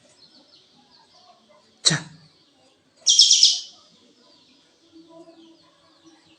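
Kapas tembak songbird singing: one loud, quick burst of rapid high notes about three seconds in, with faint twittering in between. A single sharp knock comes just before it, a little under two seconds in.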